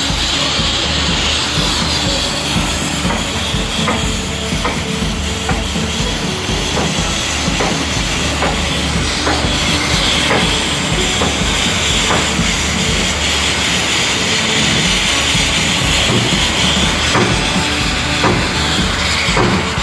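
Abrasive grit blaster running: compressed air and grit blasting from the nozzle against steel pipe in a loud, steady hiss.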